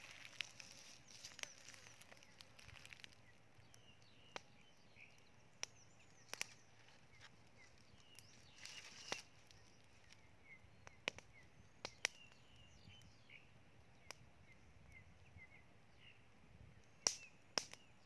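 Wood fire crackling with sharp, irregular pops, the loudest pair near the end, over faint high chirps in the background.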